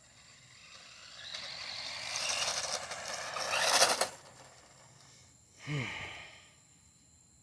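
Tyco Twin Turbo Lamborghini RC car, running its stock motors on a 3S LiPo, driving up on concrete: motor and tyre noise builds as it approaches and stops abruptly about four seconds in. Near six seconds there is a second short burst of driving noise with a falling tone.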